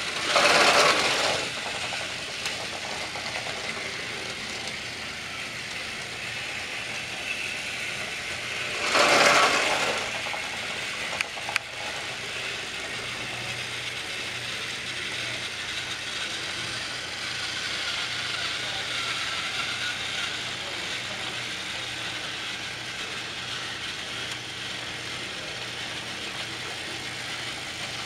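Battery-powered Trackmaster toy train engines running on plastic track, a steady whir and rattle of small motors and gears. Two louder rushes of noise swell up, about a second in and about nine seconds in, and a couple of sharp clicks come a little after the second.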